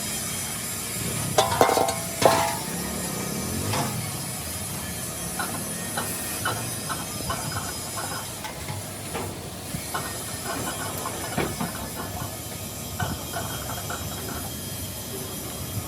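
Workshop metalwork: a steady hiss with two sharp knocks early on, followed by runs of short, evenly repeated strokes.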